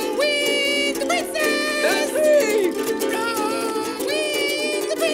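Instrumental song music: plucked strings over a steady accompaniment, with a melody line that slides up and down in pitch between held notes.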